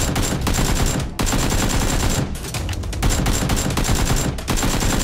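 Automatic gunfire sound effects: rapid bursts of many shots a second, with short breaks about a second in, in the middle and near the end.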